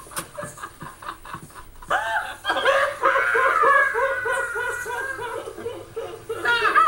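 A woman laughing hard, played through a TV speaker: faint quick chuckles at first, then from about two seconds in a loud, high-pitched run of rapid giggles, about four or five a second.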